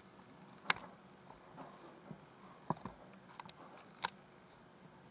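A few separate sharp clicks or taps, three of them louder and spaced over a second apart.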